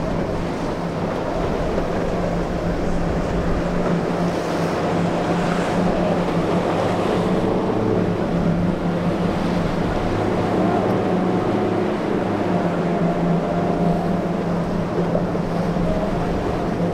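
Outboard motor of a center-console boat running through rough surf: a steady low drone with a higher tone that wavers in pitch as the throttle changes, over the wash of breaking waves and wind on the microphone.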